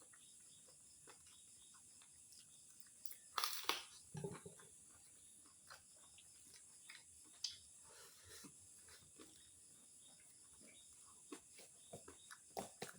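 Faint, intermittent chewing of crispy fried pork face skin, with short crunches and mouth clicks scattered through. The loudest crunches come about three and a half to four and a half seconds in.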